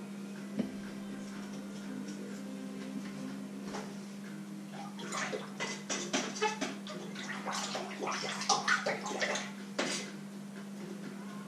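Hands splashing in water in a stainless steel bowl, a run of irregular splashes and clinks between about five and ten seconds in, over a steady low hum.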